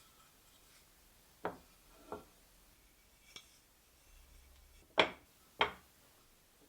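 Sharp knocks of wood against wood: two knocks about a second and a half in, a faint click, then two louder knocks near the end, each ringing out briefly.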